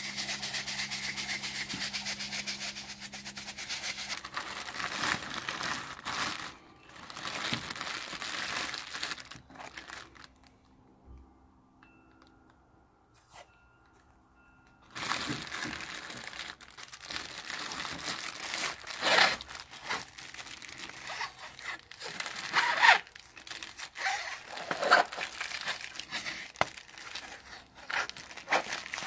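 Plastic bag crinkling and black electrical tape being pulled off the roll and torn as a Tannerite target jar is bagged and taped up. The rustling is steady at first, drops to near silence for a few seconds in the middle, then comes back as a run of sharp crackles and tearing strips.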